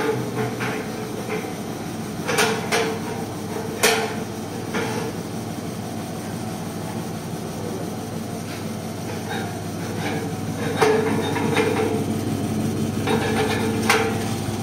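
Vegetable seed coating machine running with a steady motor hum, with a few sharp metallic knocks and clacks over it.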